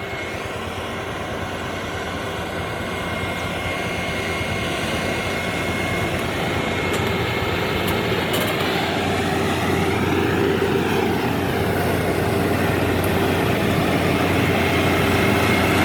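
Rice combine harvester travelling along a road, its engine a steady drone with a constant whine, growing gradually louder.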